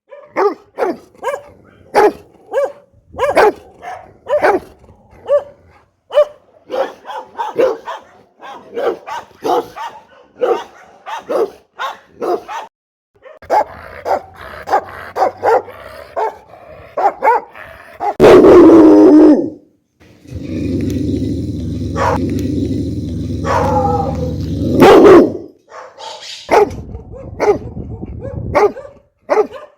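Rottweiler barking repeatedly in short deep barks, about one or two a second, with a louder, unbroken stretch of sound around the middle before the barking resumes.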